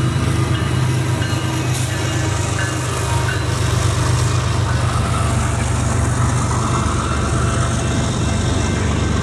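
Diesel locomotive passing through a grade crossing with a train of wind-turbine blade cars, its engine giving a steady low rumble. Wheel and rail noise builds from about two seconds in as the locomotive and the first cars pass, and the crossing bells ring throughout.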